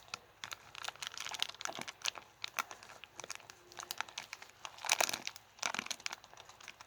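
Plastic slime bag crinkling, with irregular small clicks, as hands try to work its fallen-off slider zipper back onto the track.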